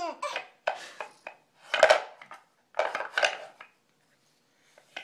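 A woman hiccuping and a baby laughing at the hiccups: about four short, breathy bursts in the first three and a half seconds, then a pause of about a second.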